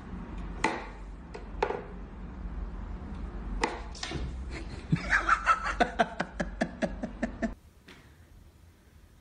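Sharp wooden knocks from a Carno whack-a-mole cat toy as its plungers pop toy mice up through the holes, a few of them over the first four seconds. Then a person laughs in quick bursts for a couple of seconds and stops suddenly.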